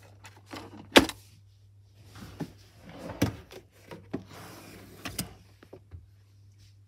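Desk drawer and its contents being handled: a sharp knock about a second in, then rustling and a few lighter knocks, over a faint steady low hum.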